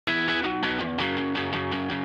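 Background music led by guitar, with a steady rhythm.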